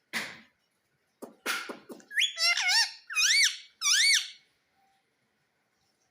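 Indian ringneck parrot calling: a few short harsh squawks, then a run of loud, high whistled notes that each rise and fall in pitch.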